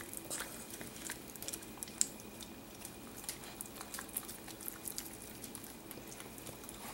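Italian greyhounds nibbling and chewing salmon from a hand: a scatter of small, irregular clicks and smacks, one sharper click about two seconds in.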